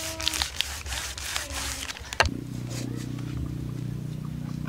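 A knife sawing through a plastic food wrapper on a wooden cutting board, with scratchy strokes and crinkling for about two seconds, then a sharp click. After that a steady low hum continues.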